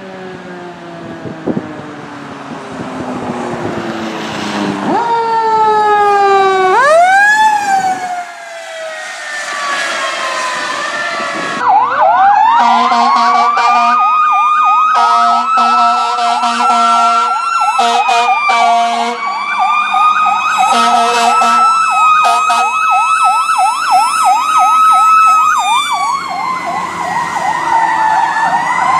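Fire truck sirens in succession: a mechanical siren coasting down, then winding up and falling away. After that comes a sustained siren whine layered over a fast warbling electronic yelp, with air horn blasts sounding on and off.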